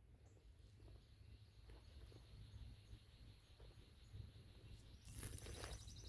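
Near-silent forest ambience: faint high-pitched chirps repeat about twice a second over a low rumble. About five seconds in, a rustling begins, like footsteps starting on dry leaf litter.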